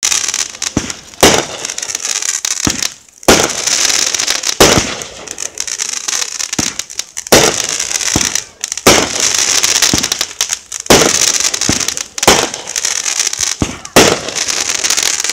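Aerial fireworks going off in quick succession: about eight loud bangs a second or two apart, with hissing and crackling in between.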